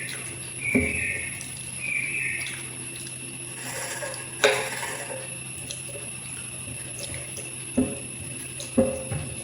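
Eating sounds of watery rice: wet scooping and liquid sounds, with a few sharp clinks against a dish. The loudest clink comes about halfway, and a quick pair comes near the end.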